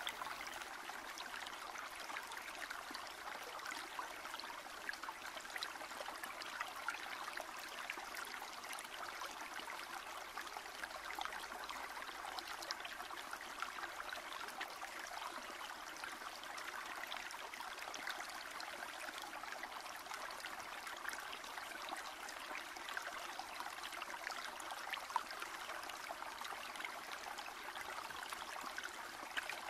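Running water flowing steadily, at a low level.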